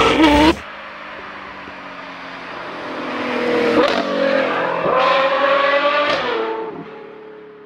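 Car engine revving briefly, then a car accelerating past, its engine note growing louder through the middle with a couple of sudden changes in pitch, then fading away near the end.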